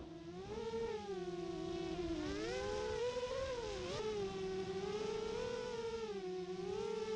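FPV racing quadcopter's motors and propellers whining, the pitch rising and falling smoothly as the throttle changes.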